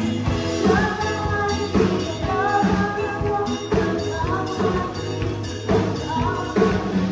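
Children's gospel choir singing with a live band: drum kit strikes keep a steady beat under the voices and a low bass line.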